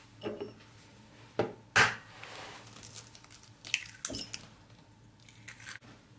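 An egg cracked with two sharp taps, then its shell pulled apart by hand and the raw egg dropping into a ceramic bowl, with a few light handling clicks near the end.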